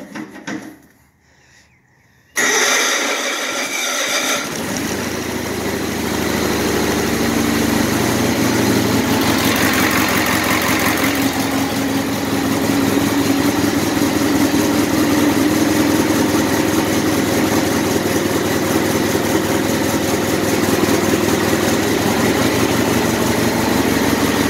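Small riding tractor's engine cold-started. A few light clicks, then about two and a half seconds in the engine catches suddenly. It runs harsher for a couple of seconds, then settles into a steady idle.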